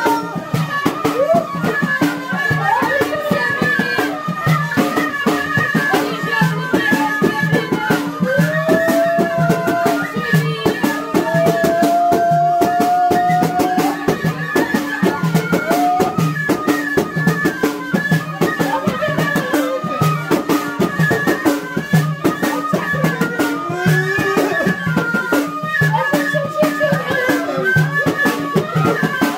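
Two reed flutes playing a traditional Moroccan melody together over steady, rattling rhythmic percussion, with a few long held notes that glide in pitch.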